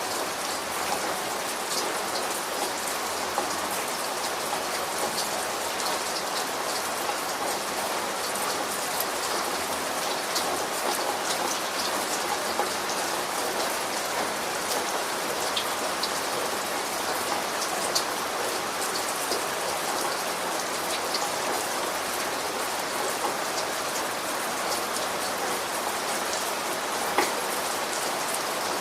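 Steady rain falling on a surface, an even hiss with scattered louder drop ticks and a few sharper drips.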